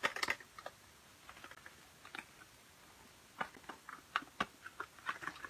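Light clicks and taps of small craft items and packaging being handled, as something is pulled out of a box: a few right at the start, then a quiet stretch, then more from about three and a half seconds in.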